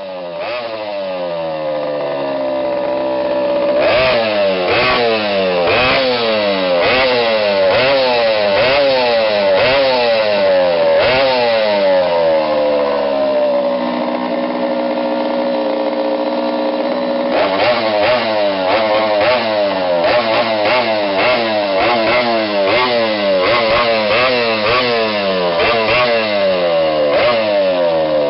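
Small two-stroke go-kart engine revving up and down over and over, about once a second. It holds a steadier pitch for a few seconds midway, then goes back to the quick rises and falls.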